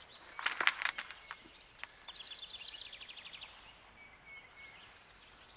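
A short burst of scraping and rustling from handling the wire and PVC pipe, then a songbird's rapid high trill of about ten notes a second lasting a second and a half, followed by a faint short whistled note.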